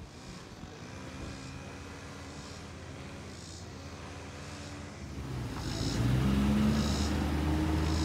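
A steady low motor hum that grows louder about five seconds in, with short high chirps repeating about once a second.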